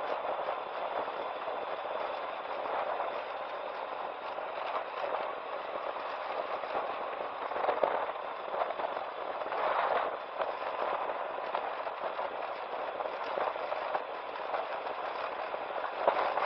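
Yamaha FJR1300 motorcycle ridden over a rough gravel road: steady noise of wind and tyres on loose stones, full of crackling, with louder knocks around eight, ten and sixteen seconds in.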